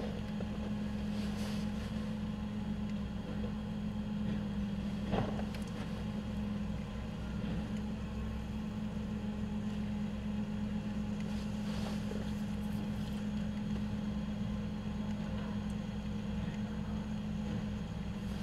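Rear-loading garbage truck's packer running through a compaction cycle: the engine and hydraulics keep up a steady mechanical drone with a strong, even hum, and a single sharp knock about five seconds in as the blade works the trash.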